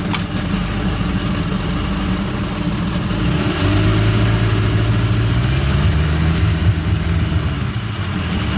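Mercury 50 hp four-cylinder two-stroke outboard running in neutral, revved up about three and a half seconds in: its pitch climbs and holds, then drops back toward idle near the end.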